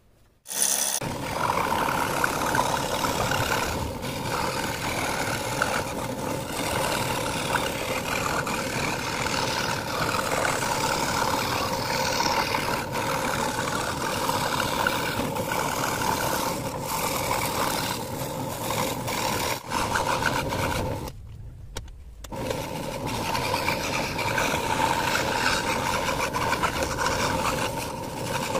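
Scroll saw running, its blade cutting through thin plywood as the workpiece is fed along the pattern line: a steady mechanical hum. It starts about a second in and drops away briefly about two-thirds through.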